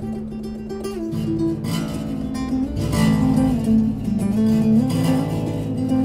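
Acoustic tenor bass tuned to a drone, played by plucking: one steady drone note rings throughout under a melody of plucked notes that step up and down. It is played inside a concrete drainage tunnel.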